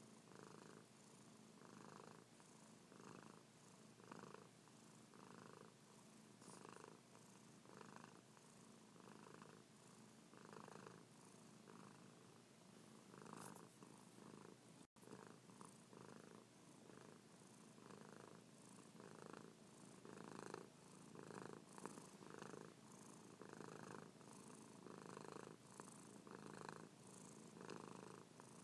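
Grey domestic cat purring quietly, picked up very close, in an even rhythm of swells about once a second as she breathes in and out. The sound drops out for an instant about halfway.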